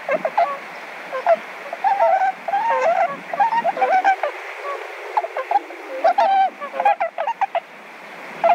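A flock of Bewick's swans (tundra swans) calling, many short pitched calls overlapping one another in quick succession.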